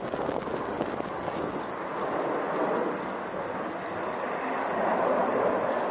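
Steady jet-engine roar from a formation of fighter jets flying overhead, an even rushing noise that swells a little about five seconds in.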